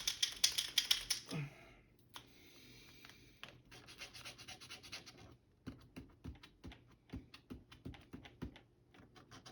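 Capped Birchwood Casey sight touch-up paint pen being shaken to get the green paint flowing: a fast, loud rattle of clicks for about the first second and a half, then quieter clicking with a few soft knocks.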